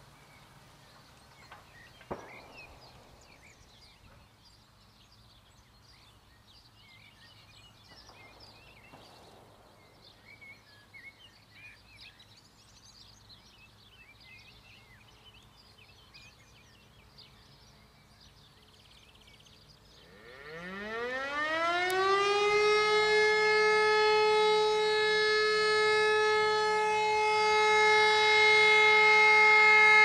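Siemens E57 electromechanical siren starting up for the first tone of the 'Feueralarm' fire-brigade signal in a monthly siren test. About twenty seconds in it winds up, rising in pitch over about two seconds, then holds a loud, steady wail. Before it, only faint outdoor ambience with scattered bird chirps.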